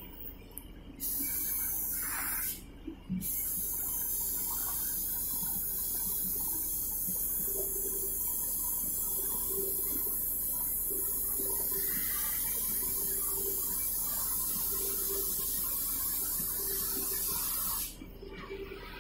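Oxy-fuel gas cutting torch hissing loudly as its cutting-oxygen jet blows through steel plate. The hiss starts about a second in, drops out briefly a couple of seconds later, then runs steadily until it cuts off near the end.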